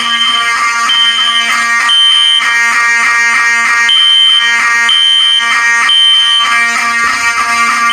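Fire alarm horn strobes sounding together in alarm: one horn pulses in the temporal code-3 pattern, three half-second blasts then a pause, over another horn sounding continuously with a buzzy tone.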